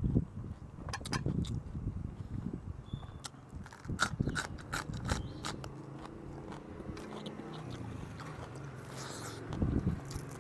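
Crisp crunching and chewing of raw green vegetables, close to a clip-on microphone: sharp bite clicks come thick in the first half, then chewing continues more softly over a faint steady hum.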